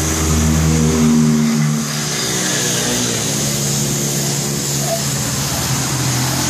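An engine running, revving up and back down in the first two seconds, then running on steadily, over a steady high hiss.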